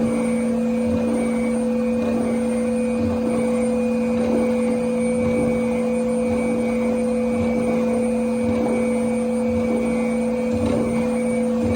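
NestWorks C500 CNC spindle running steadily at 13,500 RPM, a constant whine with its rotation tone, as a 6 mm end mill takes a facing pass. Irregular soft knocks from the cut sit underneath.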